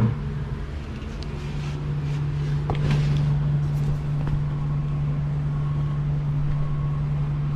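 A machine running with a steady low hum, with a light knock about three seconds in.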